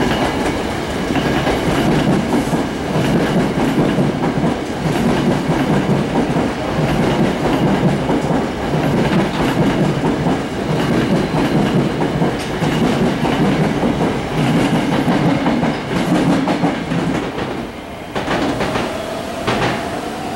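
Hankyu 1000-series electric commuter train passing close by, with the steady rumble and clickety-clack of its wheels over rail joints. Near the end the rumble eases as the last car goes by, with a few sharp clicks and a faint rising whine.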